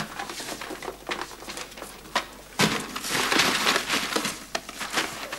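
Hands rummaging through a cardboard box, rustling and knocking its contents about, with scattered clicks and a louder stretch of rustling about halfway through.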